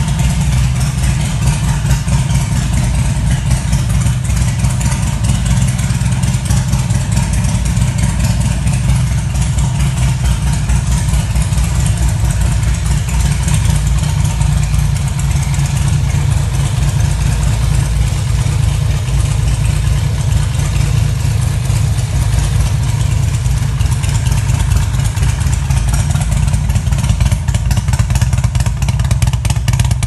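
Harley-Davidson touring motorcycle's V-twin engine, fitted with an aftermarket muffler, idling steadily and loudly.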